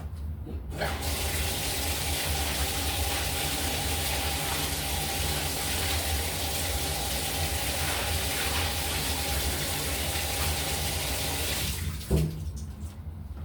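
Water tap running hard into a tub, turned on about a second in and shut off near the end, followed by a single knock.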